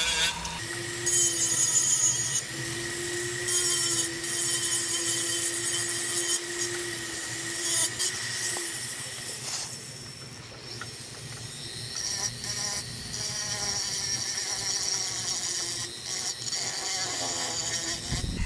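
Foredom flexible-shaft rotary tool running at a steady whine while a burr and a sanding drum grind down a wooden fish carving, with a high rasping scrape coming and going as the bit bites into the wood.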